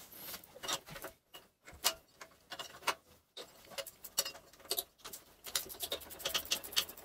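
Irregular metallic clicks and clinks of a hand wrench working the 3/8-inch nuts and bolts that hold the cast-iron Kohler K-series engine's wide-base oil pan to the garden tractor's frame. The clicks come thicker in the last couple of seconds.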